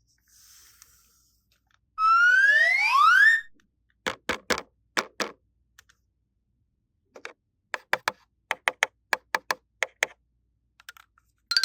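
Cartoon-style sound effects: a rising whistle glide, then four sharp taps, then a quick run of about a dozen clicks, about four a second. A loud, fast repeating jingle starts near the end.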